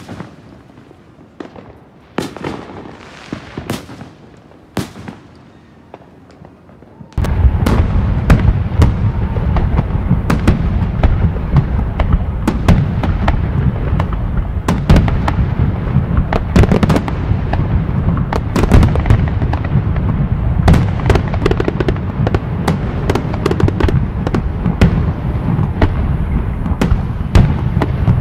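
Fireworks going off: scattered bangs and pops at first, then about seven seconds in a sudden dense barrage of rapid bangs and crackling that keeps on.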